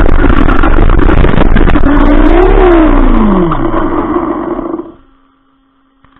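RC car's motor whining over a loud rushing noise as the car speeds up and slows down. The whine rises in pitch to a peak about two and a half seconds in, then falls away steadily. Near the end the sound cuts out, leaving only a faint steady hum.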